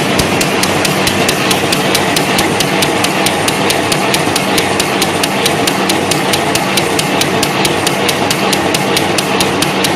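V-fold paper towel machine running at speed: a steady mechanical din with a fast, even clacking, about five strokes a second, over a low hum.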